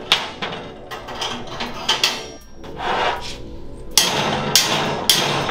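Mallet tapping a kingpin bolt to drive bushings into a mini bike frame's steering neck tube: repeated sharp metal strikes, irregular at first, then a steady run of about two a second from about four seconds in.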